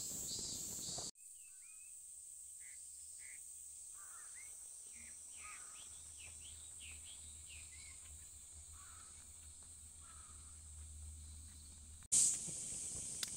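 Summer forest ambience: a steady high insect chirring, with a series of short, falling bird calls through the middle. The sound drops quieter about a second in and comes back louder near the end.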